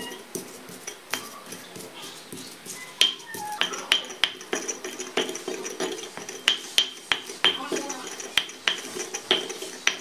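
Stone pestle crushing and grinding garlic and shallots into a paste in a stone mortar (ulekan and cobek). Stone scrapes on stone, with sharp clicks a few times a second that grow louder and more frequent from about three seconds in.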